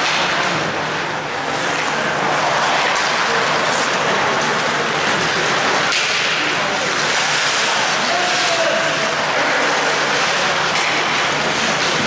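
Ice hockey play on an indoor rink: a steady hiss of skate blades scraping and carving across the ice.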